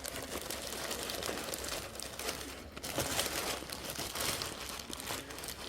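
Packaging crinkling and rustling continuously as a large parcel is handled and opened by hand, with many small crackles.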